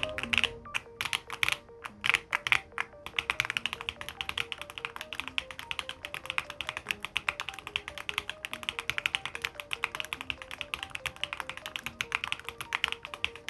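Typing on a DK1 60% keyboard: a few separate keystrokes at first, then from about three seconds in a fast, continuous run of key clicks. Soft background music plays underneath.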